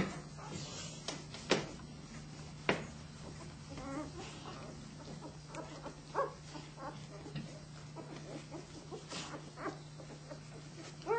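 Litter of young flat-coated retriever puppies making short squeaks and grunts while nursing, scattered irregularly, with a few sharp knocks in the first few seconds over a steady low hum.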